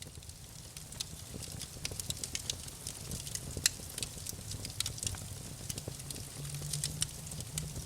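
Wood campfire burning: wood crackling with many irregular sharp pops, one louder pop near the middle, over a steady low rumble.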